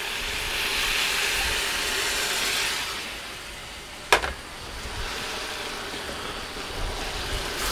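Vegetable stock sizzling and hissing on contact with a hot cast-iron pan of fried potatoes, mushrooms and peppers. The hiss swells over the first few seconds and then eases, with a single sharp click about four seconds in.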